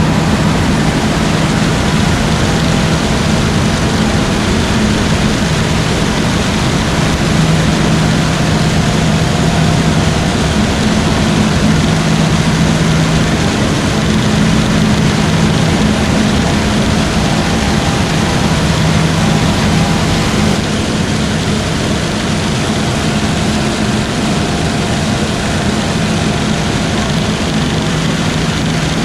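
Heavy harvest machinery running steadily under load: a constant low engine hum under a loud, even mechanical rush, easing slightly about twenty seconds in.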